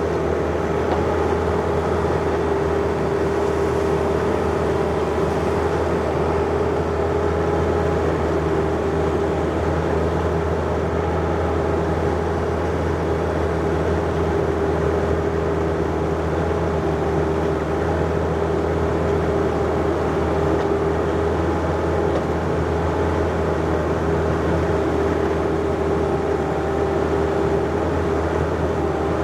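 John Deere 50ZTS mini excavator's diesel engine running steadily, with a constant whine held over the engine note.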